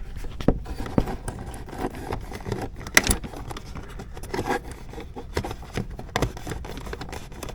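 Hands working the rear wiring connectors and their rubber sleeve: scattered small plastic clicks and scrapes, with one sharper click about three seconds in.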